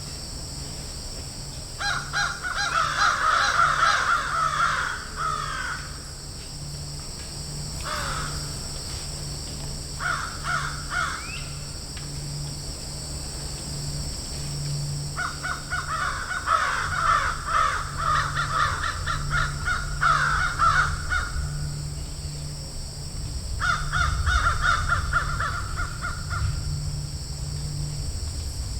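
Crows cawing in bouts of rapid, repeated caws, with pauses of a few seconds between bouts, over a steady high-pitched hiss.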